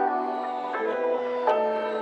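Background music of soft, held chords, changing twice.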